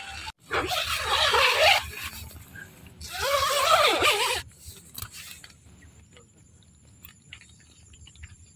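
An animal calls loudly twice, each call about a second and a half long, rough and wavering in pitch. A faint, steady, high insect buzz with a few small ticks follows.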